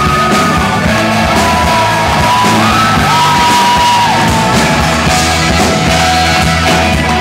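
Live rock band playing: an electric guitar plays long, sliding held notes over bass and drums.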